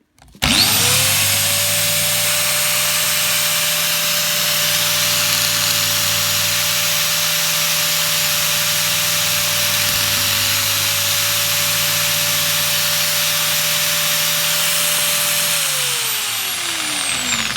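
Angle grinder fitted with a replacement Chinese armature, switched on and spinning up within half a second to a steady high whine over a harsh motor noise. It runs for about fifteen seconds, then is switched off and winds down with a falling pitch near the end.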